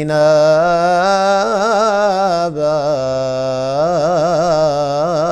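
A man's voice chanting Quranic recitation in melodic tajweed style: one long, drawn-out phrase on held notes with wavering ornaments, broken briefly about two and a half seconds in.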